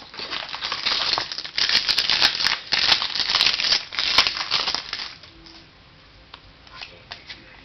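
Foil wrapper of a trading-card pack being torn open and crumpled by hand: loud crinkling in quick bursts for about the first five seconds, then only a few faint clicks.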